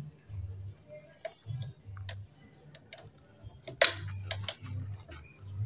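Metal clicks and clinks of a socket wrench on the front axle bolt of a Honda automatic scooter as the bolt is being loosened, with one sharp ringing clank a little before four seconds in and a few lighter clicks after it. Background music with a low, regular beat plays underneath.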